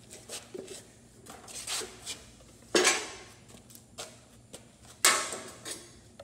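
Light metallic clinks and clatter of hand tools and parts being handled, with two louder sharp clanks about three seconds and five seconds in.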